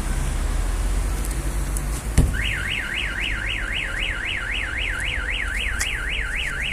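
A single thump on the car body about two seconds in, then an aftermarket Starline car alarm siren starts sounding, sweeping rapidly up and down about four times a second: the alarm's shock sensor has been set off by the impact.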